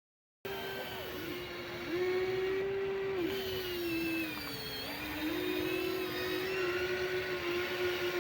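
Small electric gear motors of an RC excavator whining, starting suddenly about half a second in. The pitch dips and rises several times as the motors work under changing load.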